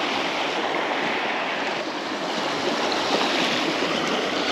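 The Schlaube, a small river running high with a lot of water, rushing steadily.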